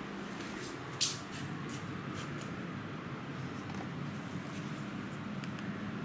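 TCL 18T3B inverter split air conditioner running steadily with its fan on high: a low, even hum and airflow hiss. A sharp click about a second in and a few short rustles come from the camera being handled.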